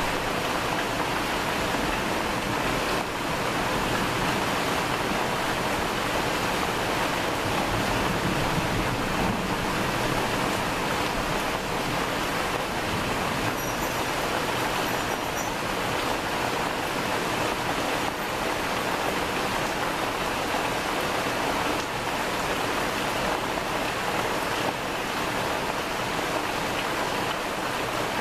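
Rain falling steadily during a thunderstorm, an even hiss with no thunderclap.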